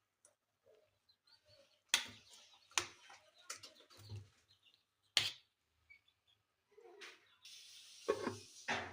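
Sharp knocks and clinks of cooking utensils, about five strokes spaced irregularly, with a steady hiss starting near the end.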